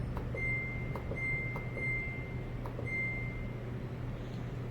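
Samsung top-load washing machine's control panel beeping as its buttons are pressed: about four steady high beeps, each roughly half a second long, with faint clicks between them. A low steady hum runs underneath.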